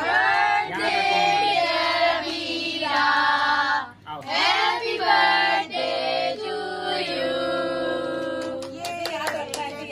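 People singing together, children's voices among them, as a birthday cake is cut.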